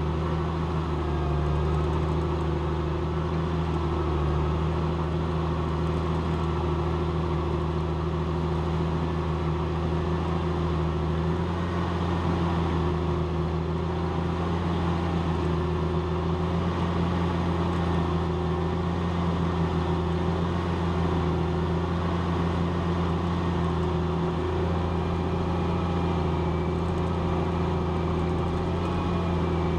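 Challenger MT765B tracked tractor's diesel engine running steadily under load, pulling a plough.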